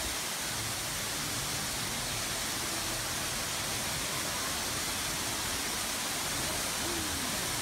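Steady, even rushing noise with no rhythm or pitch.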